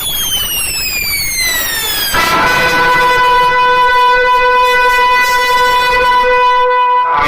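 A DJ sound system playing an electronic effect: a falling sweep for about two seconds, then a steady, buzzy pitched tone held for about five seconds that cuts off suddenly.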